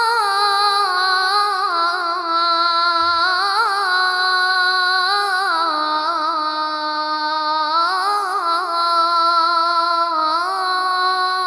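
A boy's voice chanting the adhan, the Islamic call to prayer, holding one long melismatic line on the shahada phrase 'ashhadu anna Muhammadan rasulullah' with ornamented rises and falls in pitch. The note fades out just after the end.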